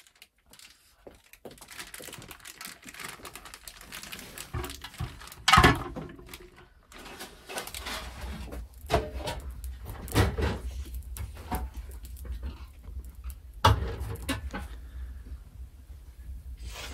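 Cooking handling sounds: scattered knocks and rustles of hands working a pot and dough. A steady low rumble joins about eight seconds in.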